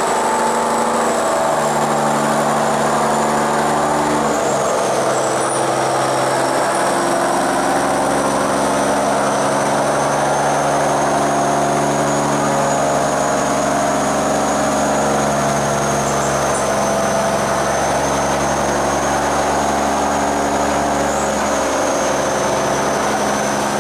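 A loaded barge's diesel engine running hard against a strong current, its pitch stepping up and down several times as the throttle is worked, with water churning along the hull. The barge cannot make headway through the sluice gate.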